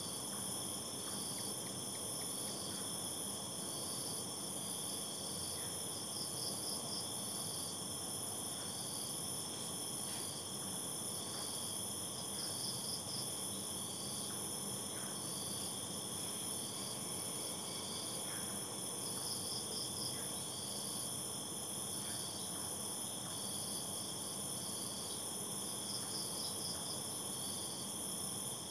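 Night-time insect chorus of crickets: several steady high-pitched drones, with a short chirp repeating about once a second and a brief trill every six or seven seconds, over a steady low hiss.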